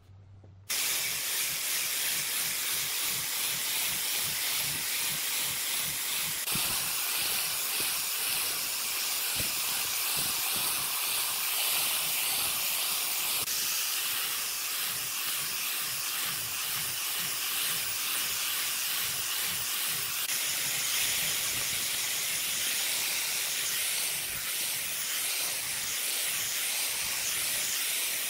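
Angle grinder with a sanding disc abrading a pine block: a steady high hiss that starts about a second in.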